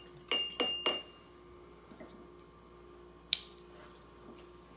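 Glass whiskey bottle tapped against the rim of a cut-crystal rocks glass three times in quick succession near the start, each clink ringing briefly, to shake out the last drops of a pour. A single sharp click follows a little over three seconds in.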